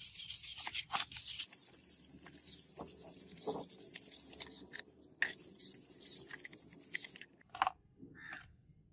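Steady abrasive scrubbing, a continuous high hiss of something being rubbed or sanded, with a few sharp clicks; it stops about seven seconds in, leaving a few light knocks.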